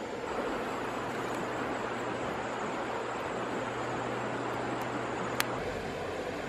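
Steady rushing of shallow river water over stones, with a single sharp click a little over five seconds in.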